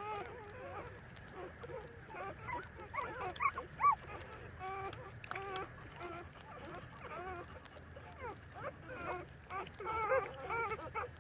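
Month-old puppies whining and squeaking while they nurse: many short, high, wavering calls overlapping one another, louder about four seconds in and again near the end.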